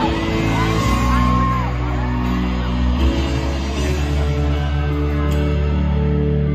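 Live arena concert music heard from among the crowd: slow, sustained keyboard chords that change every couple of seconds. A voice rises and falls over the chords in the first couple of seconds.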